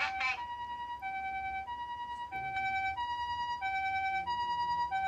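Osaka Siren MK-10 siren amplifier (OPS-5101VQ) sounding the Japanese ambulance "pee-po" hi-lo siren: a high note and a lower note alternating about every two-thirds of a second. With the fade-in/out turned off, each note switches sharply to the next.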